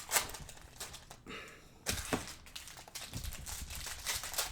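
Plastic wrappers of Panini Prizm football card packs crinkling, with irregular crackles and snaps. There is a short lull about a second in.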